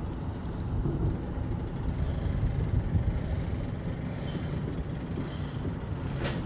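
Low, gusty rumble of wind on the phone's microphone, with a sharp click near the end.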